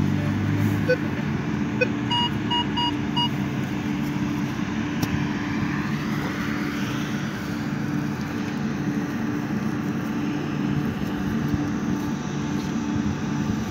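Metal detector sounding a quick run of four short, evenly spaced beeps about two to three seconds in, after a couple of single chirps, as its coil passes over the dug hole. A steady low hum runs underneath throughout.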